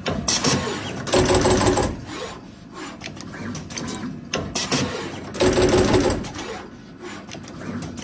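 Automatic wire cutting, stripping and crimping machine running through its cycle: light mechanical clatter with a louder burst of working noise about every four seconds, each burst carrying a steady hum.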